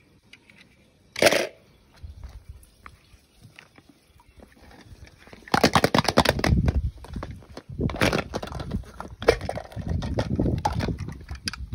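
Hollow plastic toy eggs being handled and pried open on a stone floor: a run of sharp plastic clicks, knocks and rattles, busiest from about five and a half seconds in, after a single short burst of noise about a second in.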